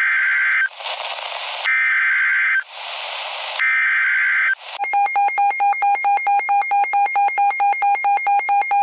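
Emergency Alert System header: three SAME data bursts, each a shrill buzzing warble about a second long, with static hiss between them. Then, about five seconds in, a loud pulsing attention alarm tone starts, beeping about four times a second.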